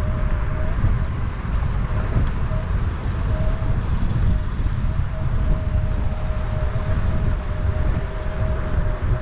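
Kaabo Wolf King 72V electric scooter in motion: a heavy low rumble of wind and road noise on the camera microphone, with a thin steady whine that fades in and out.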